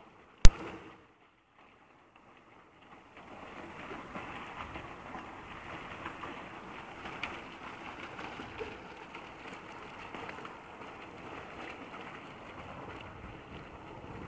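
Fountain water jet splashing into its basin, a steady crackling rush that comes in about three seconds in. A single sharp click, the loudest sound, comes just after the start.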